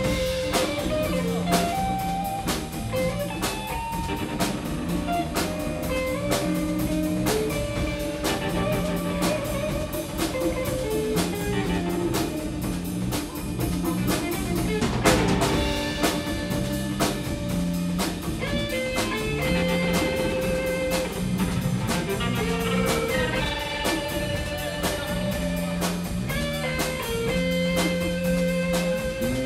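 Live instrumental band jam: electric guitars playing a melodic lead line over electric bass and a steady drum-kit beat. A loud crash stands out about halfway through.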